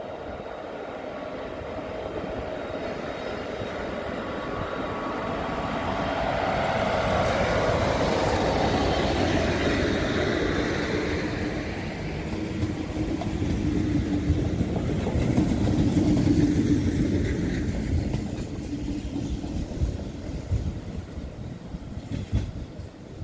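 Passenger train of double-deck coaches with a class 240 'laminátka' electric locomotive departing and passing close by. Its running noise builds, with a steady humming tone as it goes past, then fades as the train moves away.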